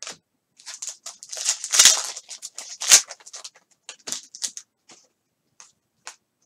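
Football trading cards being flipped and slid against one another by hand: a run of short clicks and scraping rustles, densest about one and a half to two seconds in, with single sharp card snaps near three, four and six seconds.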